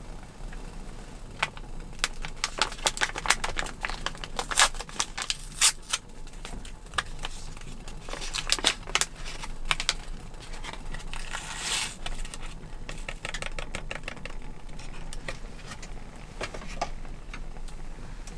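Plastic packet of instant miso soup base being handled and torn open: a run of sharp crinkles and crackles, then a longer tear about two-thirds of the way through.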